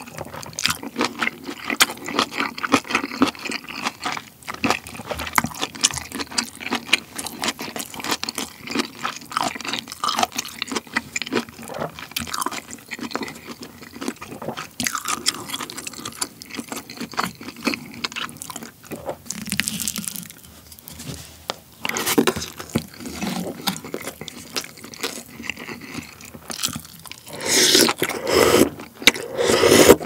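Close-miked eating of pork-belly kimchi stew: wet chewing clicks and crunching of kimchi throughout, a wooden spoon scraping in the stew bowl, and near the end a louder, longer slurp of broth from the spoon.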